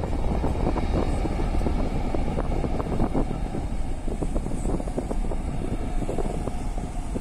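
Distant twin-engine jet airliner's engines rumbling as it moves along the runway, with wind buffeting the microphone.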